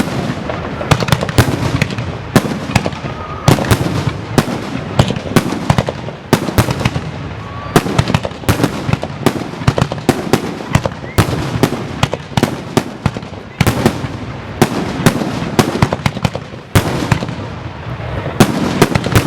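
Aerial fireworks bursting in a dense, continuous barrage: sharp bangs come several times a second over a steady crackle.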